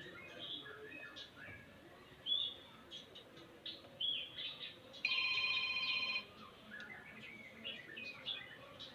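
White-rumped shamas chirping and giving short scattered calls, faint and intermittent. About five seconds in, a steady electronic trilling tone, like a phone ringtone, sounds for just over a second and is the loudest thing heard.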